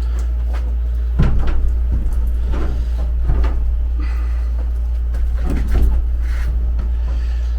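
Irregular knocks and bumps as a window air-conditioner unit is handled and set into a square opening cut in a shipping-container wall, over a steady low rumble.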